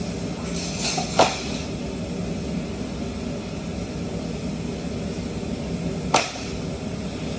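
Steady hum of workshop machinery, broken by two sharp knocks about five seconds apart, the first about a second in and the second near the end.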